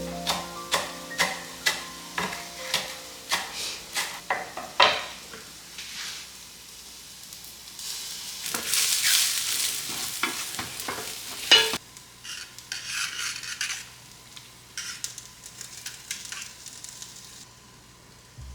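Kitchen work with utensils: sharp taps about twice a second for the first few seconds, then a stretch of hissing and stirring. After a sudden break, scattered scrapes and taps follow.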